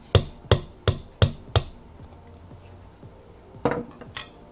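Small hammer tapping a pin punch, five sharp metallic strikes about three a second, driving out the safety lever pin of a Tanfoglio Stock 3 pistol frame. Two lighter clicks follow about two seconds later.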